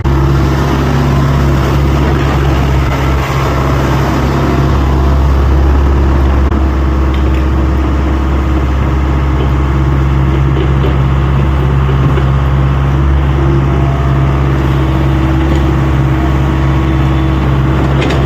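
Excavator engine running steadily at a constant pitch.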